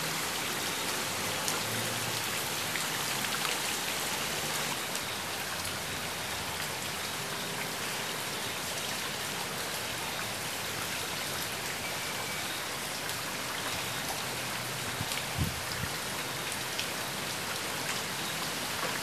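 Steady rain falling onto standing floodwater, a dense hiss of drops splashing on the water's surface, with one brief low thump late on.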